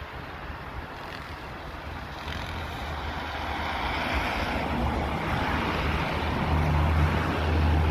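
A vehicle approaching on a wet road: tyre hiss and a low engine rumble growing steadily louder, loudest near the end.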